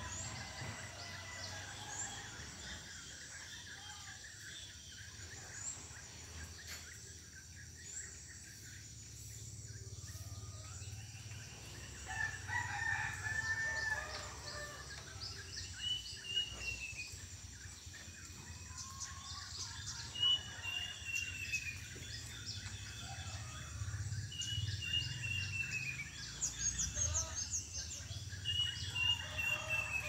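Plaintive cuckoo (kedasih, sirit uncuing) calling: a drawn-out, slightly arching whistle repeated about every four seconds in the second half. A rooster crows, and small birds chirp.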